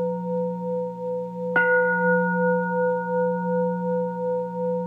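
Singing bowl ringing with several steady tones and a slow pulsing swell, struck again about a second and a half in.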